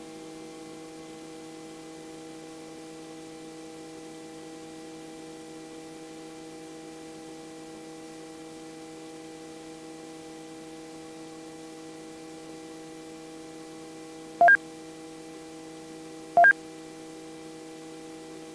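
Robinson R44 helicopter cabin noise heard through the intercom: a steady hum of several even tones while the helicopter descends in a practice autorotation. Near the end, two short, loud beeps come about two seconds apart.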